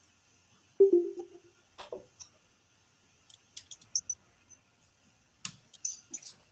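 A short low tone lasting under a second, about a second in and the loudest sound, followed by scattered short clicks and taps in small clusters.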